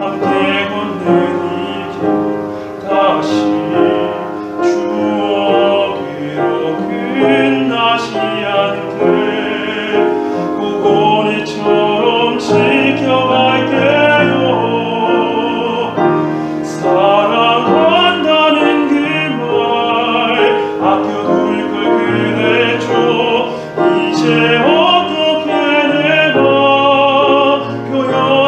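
Tenor singing with wide vibrato in a classical style, accompanied by piano.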